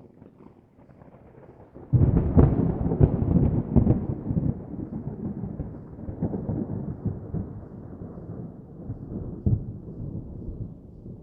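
A thunder peal. A faint rumble builds, then breaks into a sudden loud, crackling clap about two seconds in, which rolls on and slowly fades. Another sharp crack comes near the end of the rumble.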